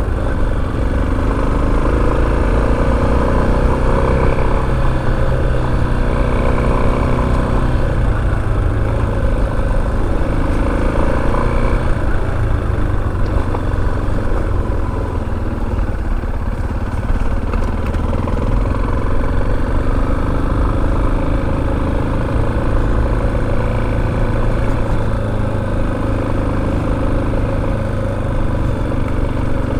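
Motorcycle engine running as the bike is ridden, its pitch rising and falling with the throttle over a steady low rumble.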